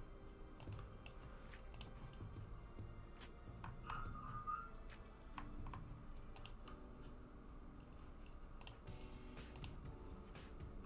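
Faint, irregular clicks and taps, with a short high blip about four seconds in.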